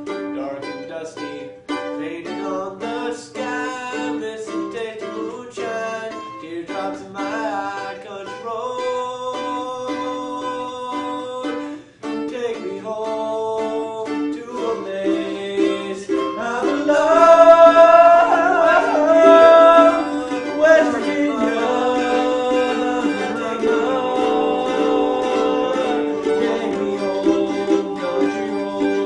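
Music led by a plucked string instrument, getting louder and fuller a little past halfway through.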